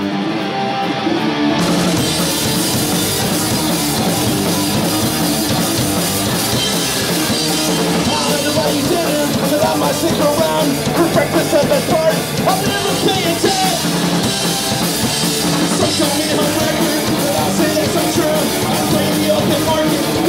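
Punk rock band playing live with electric guitars, bass guitar and drum kit. The full band comes in about a second and a half in, and the music runs on loud and driving.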